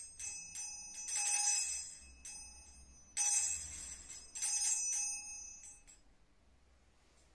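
Altar bells rung in several shaken peals at the elevation of the consecrated host, a bright high jingling that dies away about six seconds in.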